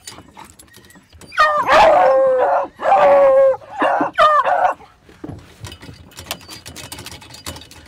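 Beagles howling and yipping in four loud bursts over about three seconds, followed by a run of small clicks.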